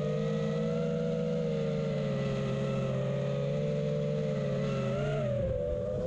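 Electric motors and propellers of a small FPV drone, heard from its onboard camera, whining with several steady tones that waver as it manoeuvres. About five seconds in the pitch drops and shifts as the throttle changes.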